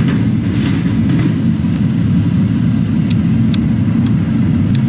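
Steady low rumble of a vehicle driving, with a few faint sharp ticks in the second half.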